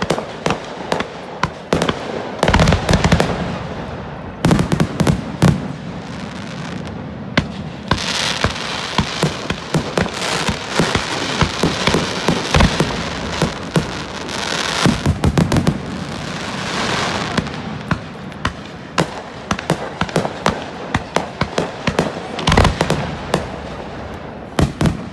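Fireworks display: a rapid run of sharp bangs from aerial shells and firecrackers. Heavy deep booms come about three, five and twenty-two seconds in, and there are stretches of dense crackling.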